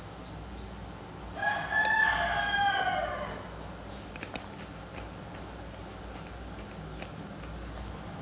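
A rooster crowing once, a call of about two seconds that drops in pitch at the end.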